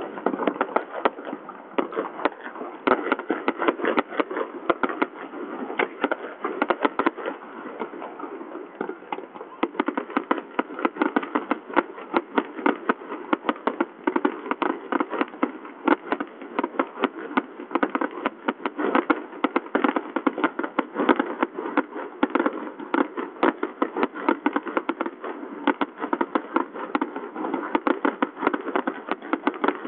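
Fireworks bursting in a dense, continuous barrage: many sharp bangs a second over a steady noisy background.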